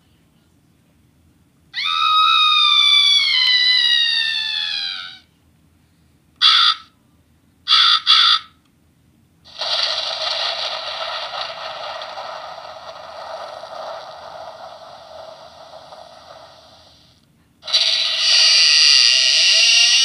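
Handheld electronic sound-effects toy playing recorded spooky effects through its small speaker, one button press after another: a falling cry a couple of seconds in, two short bursts around the middle, a long hissy sound, and another cry near the end.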